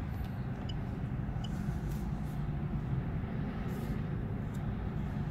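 Steady low rumble of a car's cabin with the vehicle running, with two faint short high beeps in the first two seconds.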